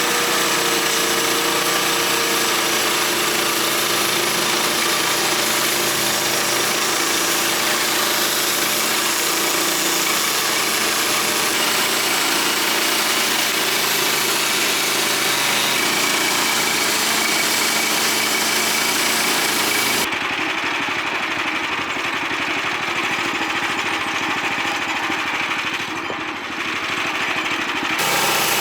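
Woodland Mills HM126 portable bandsaw mill running steadily, its gas engine driving the blade through a white pine log. The sound thins and drops slightly about twenty seconds in, then comes back near the end.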